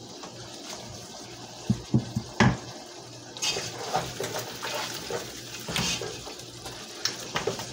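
A spatula scraping chopped tomatoes off a plastic cutting board into a pot, knocking a few times on the board and pot rim about two seconds in. Then the tomatoes hiss in the hot pot of browned beef as the spatula stirs and scrapes against the pot.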